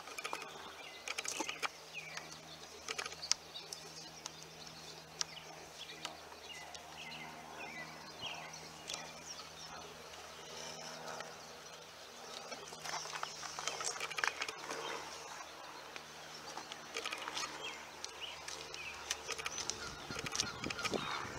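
Painter's tape being peeled off a plastic truck grille and side reflector and crumpled in the hand, making small scattered crackles and rustles. Birds chirp in the background over a faint low hum.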